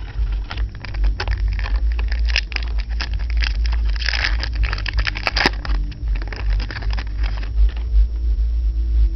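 Trading cards and their packaging being handled: quick rustling and crackling clicks, thickest around four to five seconds in, over a steady low rumble.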